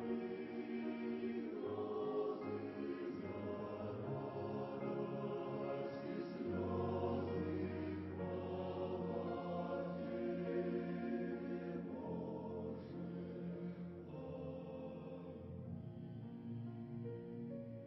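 A choir singing slow, sustained chords in a Christian hymn, growing quieter over the last few seconds.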